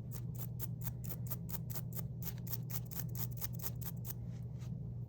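Small hearing-aid cleaning brush scrubbing back and forth over the microphone ports of a receiver-in-the-canal hearing aid: rapid, even scratchy strokes, about four or five a second, dying away near the end.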